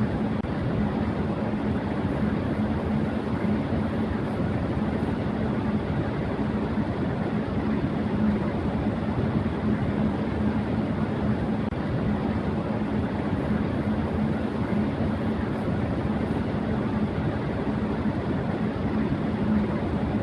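Electric fan running at high speed: a steady rush of air with a constant low hum from the motor and blades.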